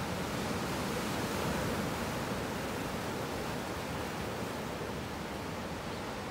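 Ocean surf breaking and washing over a rocky shore: a steady rush of waves that swells a little about a second and a half in.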